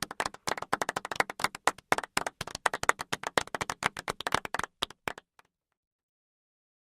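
Applause from a small group, many distinct hand claps overlapping quickly, thinning out and stopping a little over five seconds in.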